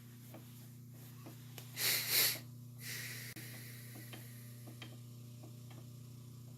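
Metal lathe motor humming steadily, with faint scattered ticks. About two seconds in comes a short, loud breathy hiss in two pulses, then a softer one.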